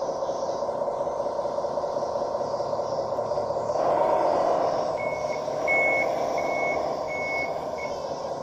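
1:12 scale model bulldozer running with a steady motor drone that swells in pitch and level about four seconds in, then a string of about five high reversing beeps from about five seconds in, signalling that it is backing up.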